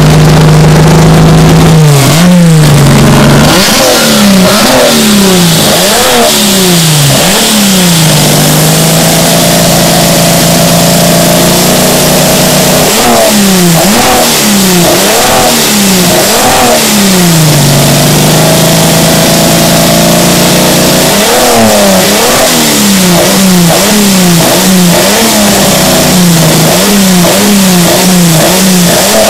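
Ford Falcon's inline-six, fitted with six individual throttle bodies and velocity stacks, idling and being blipped. Quick revs come about one a second in three runs, with the engine settling back to a steady idle between them.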